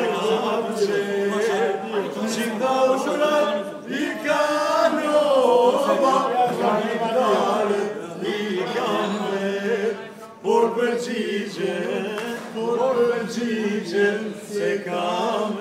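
A group of men singing together in a chant-like song, one voice through a microphone, with a short break about ten seconds in.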